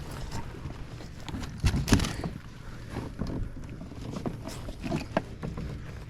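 Handling noise while a hooked bass is fought and reeled in: irregular knocks and clatter, the loudest a quick cluster about two seconds in, over a low rumble of wind on the microphone.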